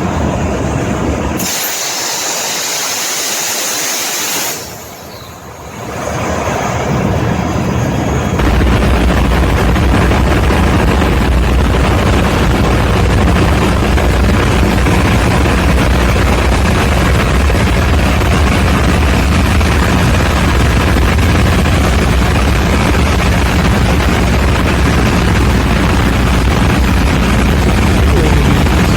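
Diesel generator: a loud hiss for about three seconds, a brief lull, then the engine picks up and settles into steady running from about eight seconds in.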